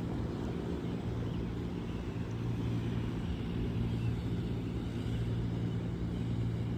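Loud, steady drone of a large outdoor fan: a constant low hum with no change in speed.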